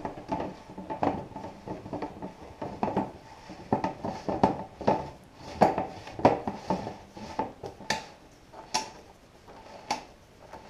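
Large blue plastic filter canister being fitted and screwed by hand onto its filter head: irregular plastic clicks and knocks as the threads engage and the housing turns, thinning out near the end.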